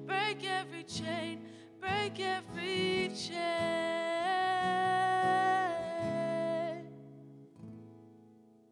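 Worship song: a voice singing with vibrato over acoustic guitar, ending its phrase on a long held note that stops about seven seconds in, after which the guitar fades away.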